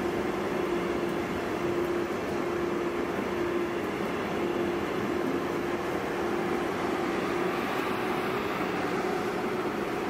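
DB Regio double-deck regional train rolling past, with a steady rumble of wheels on rail and a low hum that keeps breaking off and coming back.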